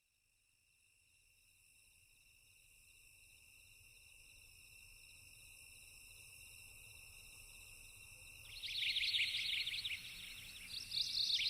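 Insects trilling together at several steady high pitches, fading in from silence. About eight seconds in, a louder, raspy pulsing insect call starts, and it comes again near the end.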